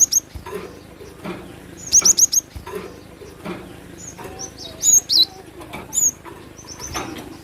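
Cinereous tit (glatik batu) calling: sharp, high chirps in short clusters, with a quick run of about four notes around two seconds in and further short groups near the fourth, fifth and sixth seconds. Softer knocks sound between the calls.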